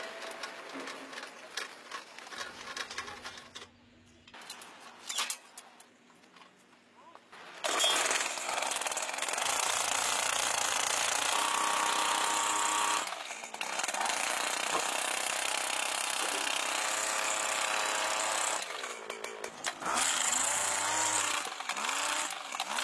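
Jackhammer running in long loud stretches from about eight seconds in, with short breaks near thirteen and nineteen seconds in; quieter knocks and clatter before it starts.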